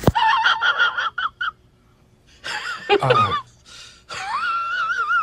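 Dogs whining and howling in voice-like glides: a string of short high whines, a couple of falling whines about three seconds in, then a long wavering howl starting about four seconds in.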